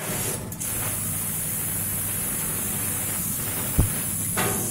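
CNC plasma cutter cutting sheet metal: a steady hiss from the cut, with a single low thump near the end.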